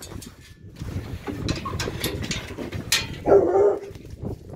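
Laika dogs whining and yipping, with rustling and short knocks throughout and a louder whine about three seconds in.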